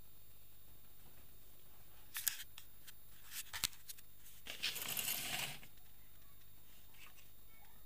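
Handling noise on a cluttered workbench: a few small clicks and knocks, then about a second of rustling about five seconds in, over a low steady hiss.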